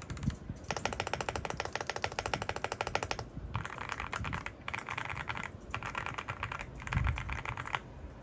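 Typing on a Leobog Hi75 aluminium mechanical keyboard with Graywood V4 switches and GMK Sumi keycaps. First comes a rapid, even run of keystrokes lasting about two and a half seconds, then four shorter bursts of typing with brief pauses between them.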